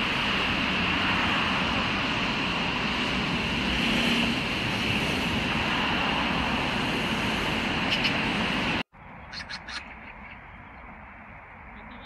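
Outdoor ambience: a steady wash of noise that cuts off abruptly about nine seconds in. A quieter background follows, with a few short bird chirps just after the cut.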